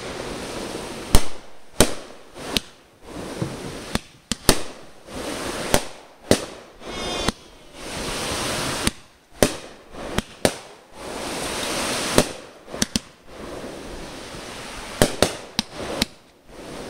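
Aerial fireworks going off: a fast, uneven run of sharp bangs with hissing in between, and a short whistle about seven seconds in.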